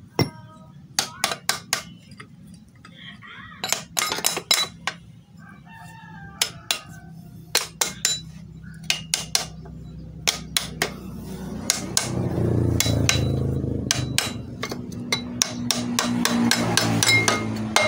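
Irregular hammer blows on steel, struck singly and in quick clusters, driving a bearing out of a gearbox case. A rooster crows in the background twice, and a low engine hum builds from about twelve seconds in.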